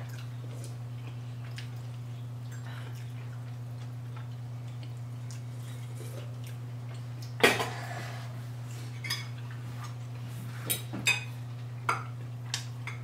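Forks clinking against plates at a meal, half a dozen sharp clinks in the second half, the loudest about halfway through, over a steady low hum.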